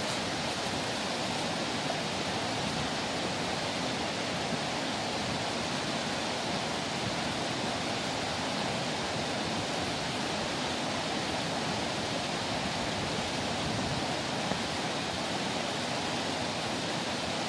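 Steady, even rush of flowing water, like a mountain stream or river running close by.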